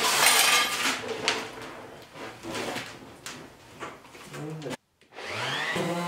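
A heavy rough-sawn wooden door is tipped and shifted on a cardboard-covered floor, with a loud scrape at first and then scattered knocks. Near the end an electric random orbital sander starts up, whining upward in pitch and settling into a steady hum.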